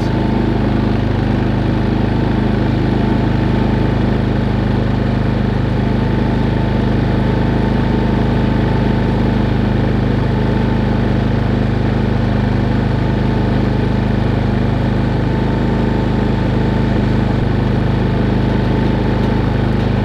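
Harbor Freight Predator 3500 inverter generator's single-cylinder four-stroke engine running at an even, steady speed under a light load from an RV's battery charger and refrigerator.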